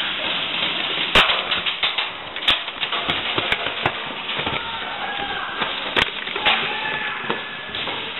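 Airsoft guns firing and BBs striking surfaces: scattered, irregular sharp cracks and snaps, the loudest about a second in and again about six seconds in, over a steady hiss.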